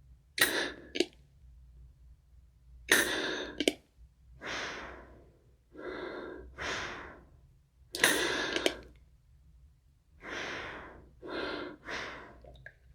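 Inhaler in use: three sudden hissing puffs, each cut off by a short click, with softer breath sounds drawn in and out between them.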